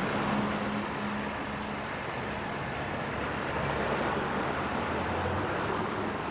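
2-8-2 steam locomotive working along the track: a steady, noisy rumble and hiss with a low hum underneath, with no distinct exhaust beat.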